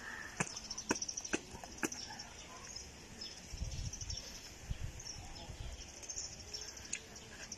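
Gloved hands working soil into a small plastic pot, with soft rustling and a few light clicks, most of them in the first two seconds. A steady high-pitched chirring runs in the background.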